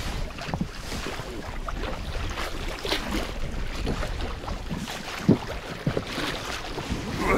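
A small, low-powered outboard motor runs steadily on a small fishing boat, with wind and water noise around it. A sharp knock comes about five seconds in.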